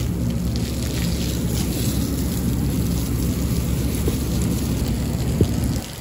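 Garden-hose stream spraying onto a rooftop air conditioner's condenser coil and splattering off the fins, a steady rain-like patter as the coil is rinsed clean.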